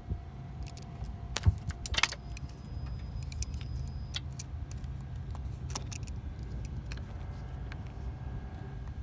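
Scattered light metallic clinks and clicks of hand work on metal parts, with two sharper knocks about one and a half and two seconds in, over a steady low rumble.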